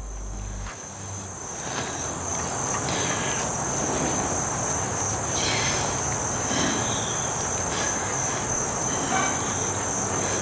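Steady high-pitched insect trill over a broad background hiss that swells about a second in.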